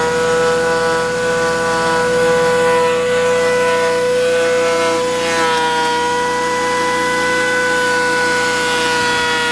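Thickness planer running with a loud, steady, high-pitched whine; the pitch dips briefly about five seconds in.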